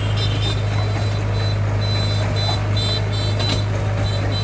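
Heavy diesel engine of an excavator or dump truck running steadily with a deep hum, while a backup alarm sounds short high beeps at uneven intervals over it.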